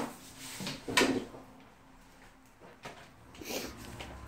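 A door being handled as people pass through it: two sharp clunks about a second apart, then a few fainter knocks.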